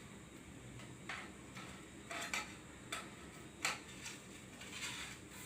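Light clicks and clinks from the parts of a photo backdrop stand being handled and fitted together, about five of them at irregular intervals.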